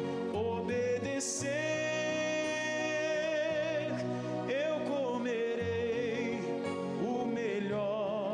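A Portuguese-language gospel song: a voice singing with vibrato over instrumental backing.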